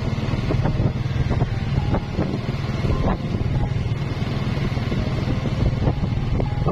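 Motorbike engine running steadily as it rides along the road, a low even rumble with wind noise on the microphone.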